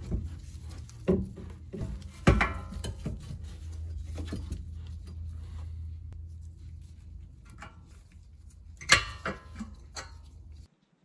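Metal clinks, knocks and rattles from handling a car's rear brake caliper and a hand tool at the brake pads, over a steady low hum. The loudest knocks come about two seconds in and again near nine seconds.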